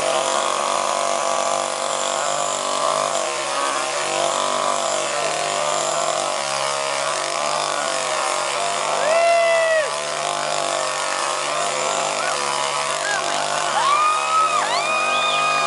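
Two-stroke chainsaw engine idling steadily with an even drone while it is juggled. Rising-and-falling whoop-like calls come over it about nine seconds in and several times near the end.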